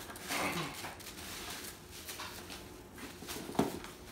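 Small cardboard shipping box being slit open with a box cutter and bubble wrap rustled out of it. There is a short falling squeak about half a second in and a sharp knock about three and a half seconds in.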